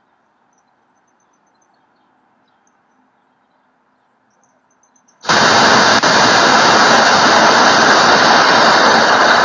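Faint background hiss, then about five seconds in a loud, steady burst of static noise that starts suddenly and holds at an even level. It is a censoring noise laid over the footage.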